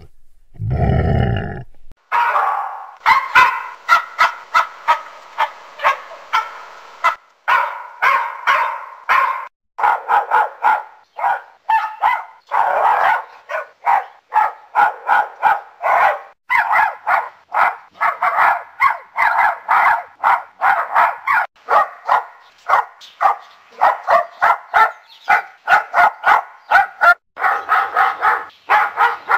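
A Dalmatian barking over and over, two or three barks a second in runs with short breaks, after a brief low rumble at the very start.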